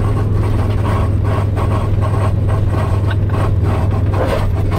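Car engine and road noise heard from inside the cabin while driving at a steady speed: a loud, even low hum that does not rise or fall.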